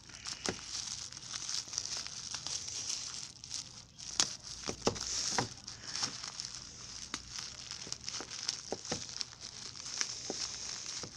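Clear plastic bag crinkling as hands open and handle it, with irregular sharp crackles.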